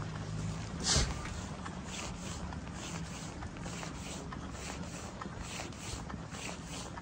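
Footsteps on wet pavement, about two steps a second, over a steady low hum. A sharp bump about a second in is the loudest sound.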